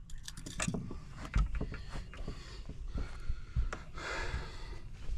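Handling noises as a just-caught fish is unhooked in a boat: scattered clicks and knocks, a few low thumps, and rubbing.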